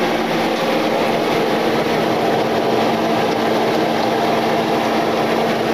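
Chopped garlic, onion and flour sizzling steadily in a pot as it is whisked into a roux, over a constant low hum.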